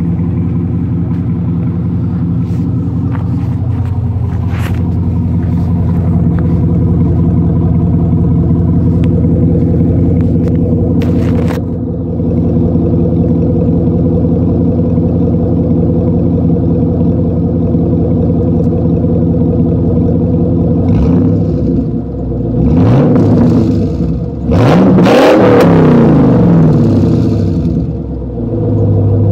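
1999 Chevrolet Camaro Z28's 5.7 L LS1 V8 idling steadily on a cold-start warm-up through an SLP Loudmouth 1 exhaust. Near the end it is revved three times, each rev rising and falling in pitch, the last one the longest and loudest.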